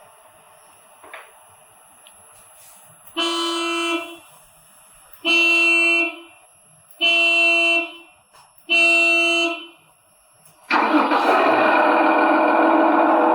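Horn of an RC model hydraulic excavator sounding four short blasts, each under a second. A loud continuous sound with a steady hum then starts about three-quarters of the way through and keeps going.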